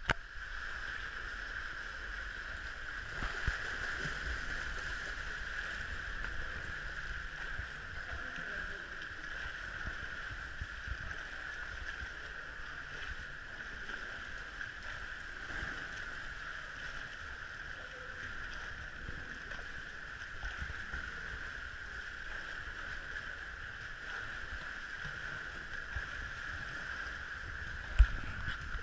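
Steady, muffled water sloshing and churning from a swimmer stroking through a pool, over a constant hiss, with one sharp knock near the end.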